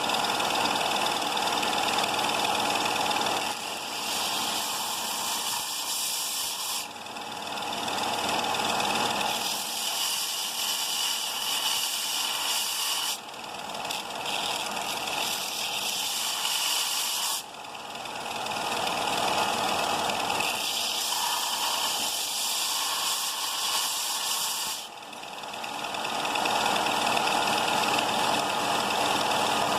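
Bauer 4 x 36-inch belt and 6-inch disc sander running, with small steel Allen key pieces being ground on it: a high grinding hiss over the motor's hum that swells and drops every few seconds as the metal is pressed on and lifted off.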